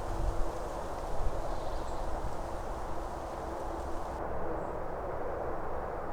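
Steady outdoor background rumble and hiss, with a faint steady hum that fades out about three seconds in.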